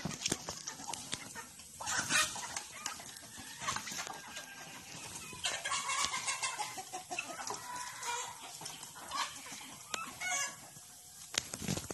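Free-range chickens clucking, with a rooster crowing in a long drawn-out call about halfway through. Scattered short knocks and scuffs run among the calls.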